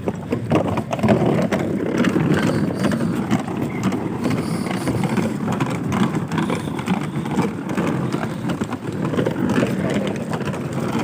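Steady, uneven rumbling vehicle noise.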